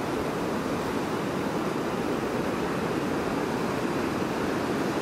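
Ocean surf washing ashore, a steady rushing noise with no breaks.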